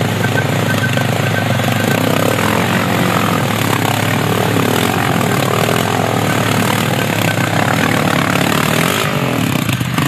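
Honda TRX700XX ATV's single-cylinder engine running loud and steadily under way, its pitch shifting slightly with the throttle.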